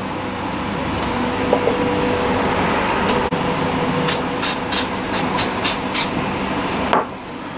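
Aerosol spray can fired in about seven short puffs over two seconds, starting about four seconds in. A steady background hiss runs underneath and drops away near the end.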